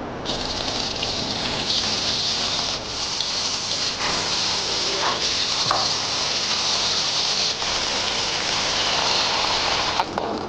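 Chopped green vegetables and meatballs sizzling in hot lard in a wok as they are stir-fried, a steady high hiss with a few light knocks of the spatula.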